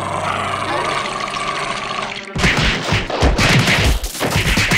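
Cartoon sound effects: a steady rushing noise, then from about two seconds in a rapid, dense clatter of bangs and crashes like a volley of gunfire.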